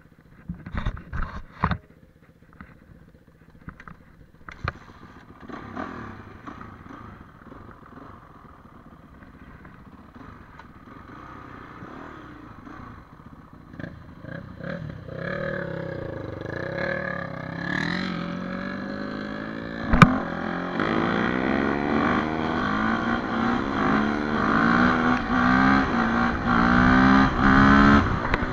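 Enduro dirt bike's single-cylinder engine, quiet at first after a few sharp knocks, then pulling away and speeding up, its pitch rising and falling with each gear change and growing louder toward the end. One sharp knock comes about two-thirds through.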